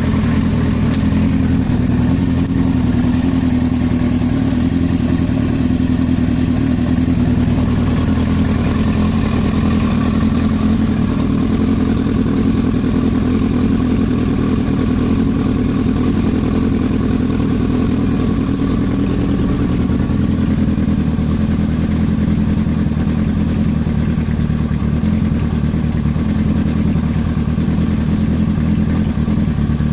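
Yamaha R1 inline-four engine running steadily with a knocking noise from the engine, which the owner takes for engine knock.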